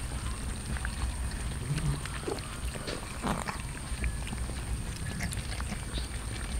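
Many cats chewing and smacking on raw chicken, a steady run of small wet clicks, over a low rumble, with a brief cat vocalization about halfway through.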